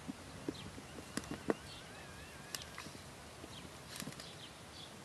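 A Belgian Malinois puppy eating from a hand: scattered sharp clicks and smacks of its mouth chewing and snapping at the food, with faint high chirps behind.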